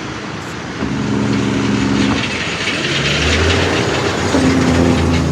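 A heavy vehicle's engine droning, its pitched hum coming in three stretches of a second or so, with a deeper rumble from about three seconds in.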